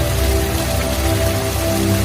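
Slow ambient music of long sustained low notes over a steady hiss of water, like rain or splashing water.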